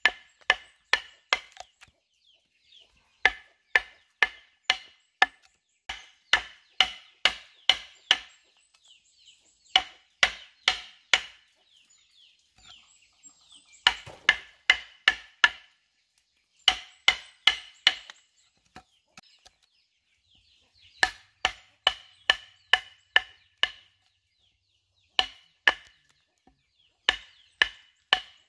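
Machete blade chopping down onto a wooden stump chopping block in quick runs of sharp strokes, about three a second, with short pauses between runs.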